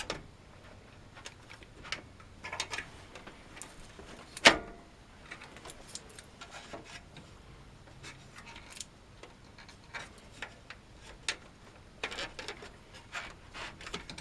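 Irregular clicks, light scrapes and knocks of an optical drive being pushed and pulled in a PC case's tool-free drive bay, the drive not yet latching into place. One sharp knock stands out about four and a half seconds in.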